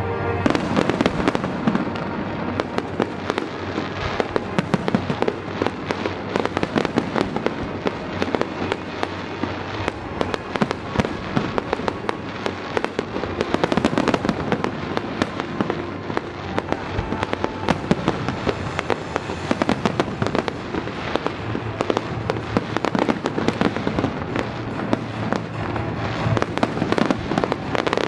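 Aerial fireworks display: many shells bursting in quick succession, a dense run of sharp bangs and crackles over a continuous rumble.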